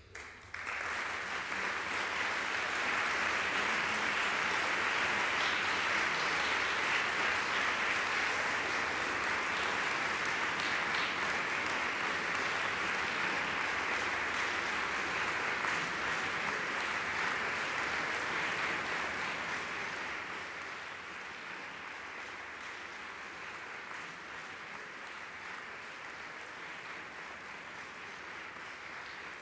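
Audience applauding, breaking out all at once and easing off a little about twenty seconds in.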